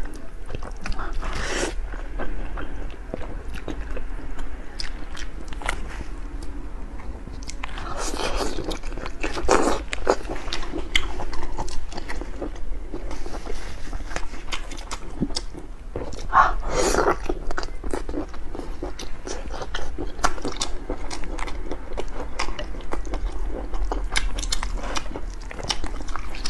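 Close-miked eating: slurping spicy instant noodles and wet chewing, with a dense run of small mouth clicks and several louder slurps.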